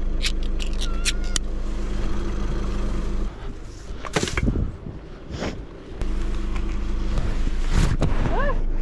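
Car engine idling steadily, with a few sharp clicks as a pull-tab tin of cat food is opened. About three seconds in the idling drops away and there are a couple of metal clanks from a metal rubbish bin. The idling returns about six seconds in, and a short wavering cry comes near the end.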